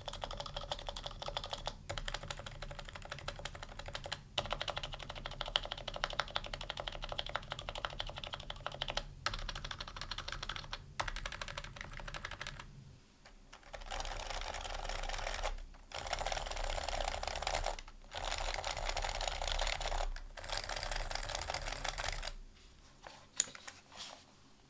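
Typing on an HHKB Pro Hybrid Type-S keyboard, its Topre switches with 45 g domes and stock keycaps giving a steady run of muted keystrokes. Brief pauses break up fast stretches of typing, and a few separate key presses come near the end.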